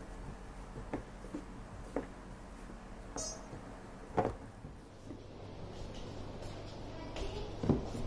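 Hands kneading a semolina and flour dough in a glass bowl: faint pressing and squishing of the dough, with a few light knocks of hands and dough against the glass, the loudest near the end.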